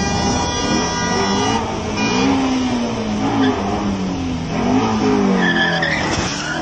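Ford Mustang's engine revving up and down with its tyres squealing. A high, steady whine holds for about the first second and a half.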